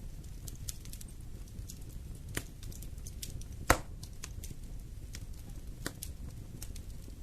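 Wood fire in a fireplace crackling: scattered sharp snaps over a low, steady rumble of the flames, with one loud pop about halfway through.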